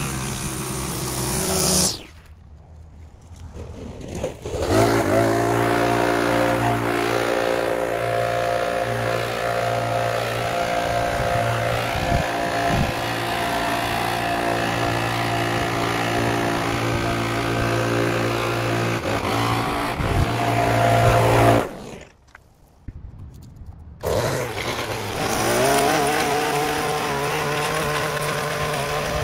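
Small gas engine of lawn equipment running steadily at speed. It drops away twice for a couple of seconds and revs back up each time.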